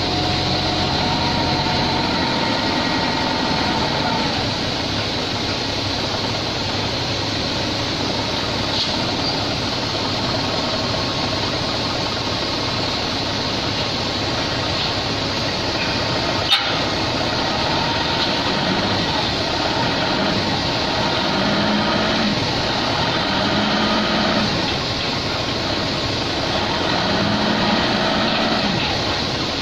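Engine running steadily in the yard, with one sharp knock about halfway through. A steady hum heard in the first two seconds stops.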